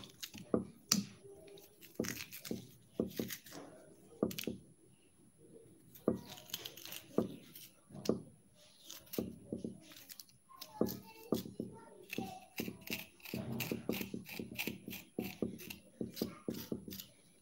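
Kitchen knife scraping the seeds out of a halved cucumber: a run of short, irregular scrapes and clicks.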